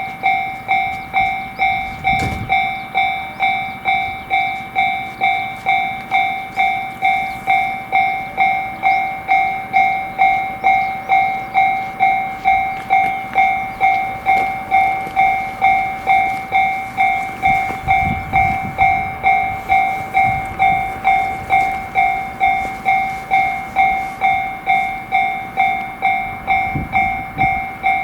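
Japanese railroad crossing warning bell ringing steadily at about two strikes a second, each clang fading before the next. Brief low rumbles come through a couple of times.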